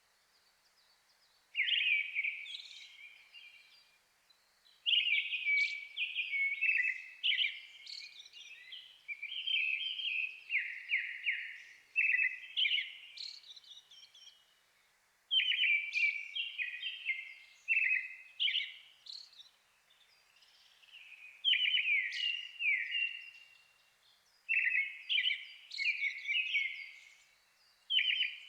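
Thrush song, a brown-headed thrush and a Japanese thrush singing against each other: runs of quick, varied whistled phrases with short pauses between them.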